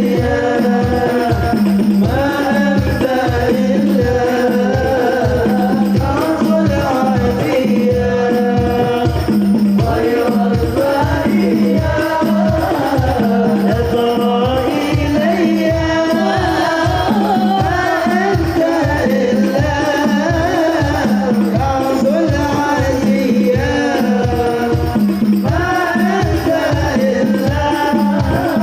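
Sholawat singing with hand-drum (hadrah) accompaniment: a solo voice carries a bending, ornamented melody over a fast, even drumbeat of about three strokes a second.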